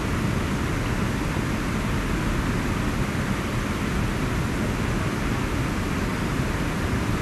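Steady, even rushing noise of a shallow river running over rocks, with no distinct sounds standing out.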